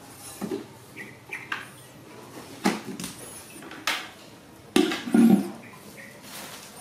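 A series of knocks and clatter, the loudest cluster about five seconds in, with short high chirps now and then.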